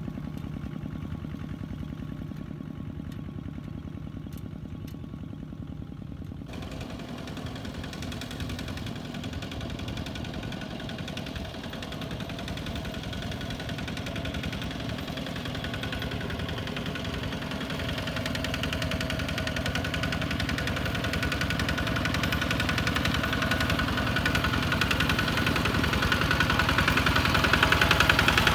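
Single-cylinder diesel engines of Kubota ZT155 walking tractors chugging steadily under load while hauling. The sound changes suddenly about six seconds in, then grows louder toward the end as one tractor comes close.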